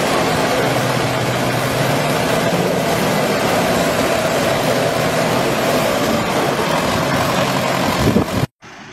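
Diesel engines of two farm tractors running steadily under load as they pull against each other on a chain in a tug-of-war. The engine sound cuts off abruptly near the end.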